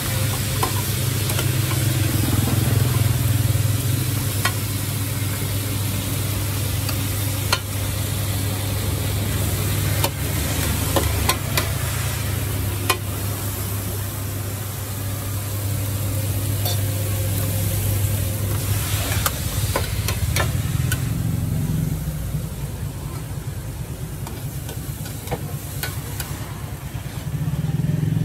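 Pad thai frying on a large flat round pan: a steady sizzle, with metal spatulas scraping and clacking against the pan now and then as portions are turned. A steady low hum runs underneath and drops away about twenty seconds in.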